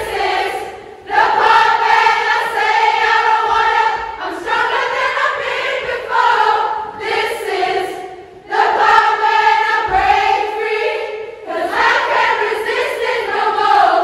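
A large group of young women singing together in unison, in phrases of a few seconds with short breaks between them.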